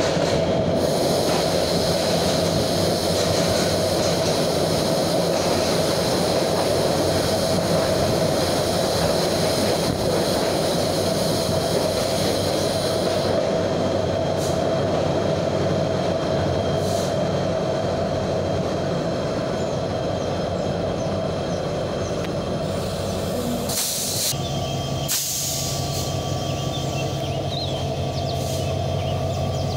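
Passenger train running into a station, heard from inside the carriage: a steady rumble of wheels and carriage that eases as the train slows. Near the end come two short bursts of noise, and then a steadier low hum.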